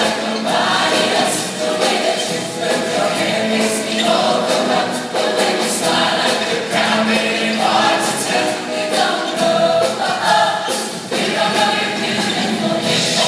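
A large show choir of many voices singing a song together.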